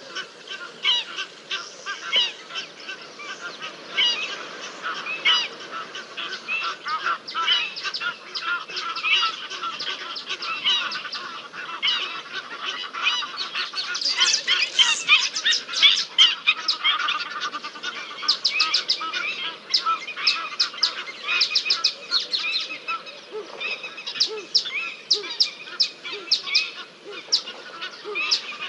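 A pack of African wild dogs (painted wolves) twittering: many high, bird-like chirping calls in quick, overlapping succession, loudest around the middle.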